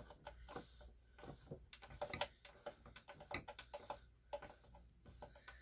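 Faint, irregular clicking and ticking of a sewing machine's gear mechanism being turned by hand while its plastic gears are greased.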